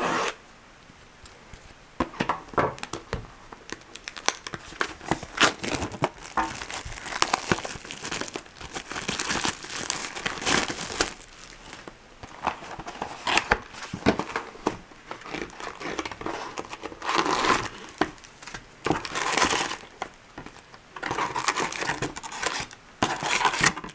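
Plastic wrapping being torn off a sealed box of trading cards and crumpled, with irregular crinkling and tearing as the box is opened and emptied of its packs.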